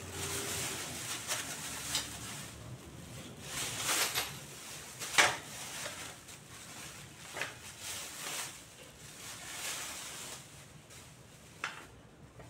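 Plastic packaging wrap rustling and crackling as it is handled and pulled away from flat-packed parts in a cardboard box, with a few sharp snaps; the loudest comes about five seconds in.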